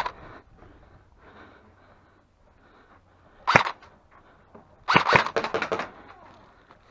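Airsoft gun firing: a single sharp shot, then about a second and a half later a rapid burst of shots lasting about a second.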